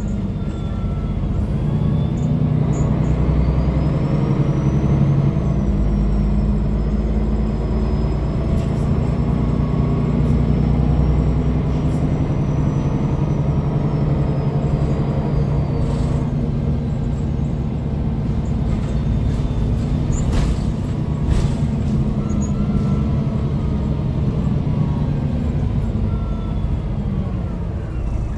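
MAN NG313 bus's MAN D2866 LUH24 six-cylinder diesel running steadily as the bus drives, heard from inside the passenger cabin, with a thin high whine slowly rising and falling above the engine. A couple of sharp clicks about twenty seconds in.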